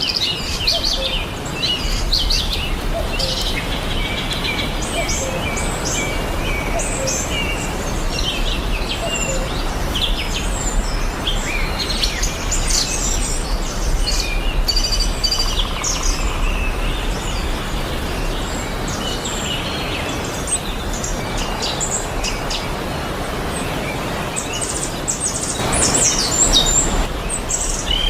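Several small birds chirping and singing in a busy chorus of short, high calls and trills, over a steady background hiss. A brief louder rush of noise comes about two seconds before the end.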